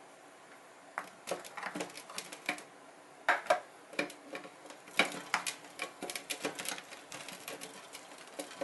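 Metal spoon scraping and clicking against an aluminium mess tin as cooked paella rice is scooped out: irregular sharp clicks and scrapes starting about a second in, with a few louder knocks.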